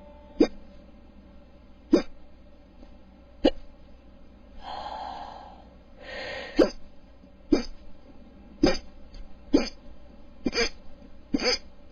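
A person's hiccups: nine short, sharp hiccups, the first three about a second and a half apart and the rest coming faster, about one a second. About halfway through, a long breath out and in breaks the run. This is a stubborn bout of hiccups that has lasted about four hours.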